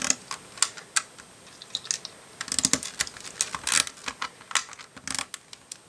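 Plastic LEGO 2x2 flat tiles clicking and clattering as they are set down and pressed onto LEGO plates by hand: a quick, irregular run of light clicks that comes in bunches.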